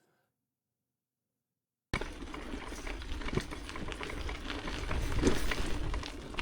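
Silence for about two seconds, then a sudden start of a bicycle rolling over a rough unpaved path: tyres crackling and crunching, with many small clicks over a low rumble.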